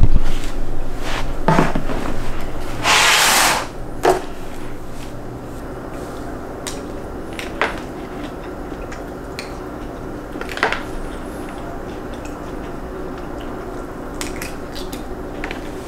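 Cutlery clinking against a bowl now and then while someone eats, over a steady low hum. In the first couple of seconds there is louder knocking and rustling as a person sits down on a couch, and a short loud hiss about three seconds in.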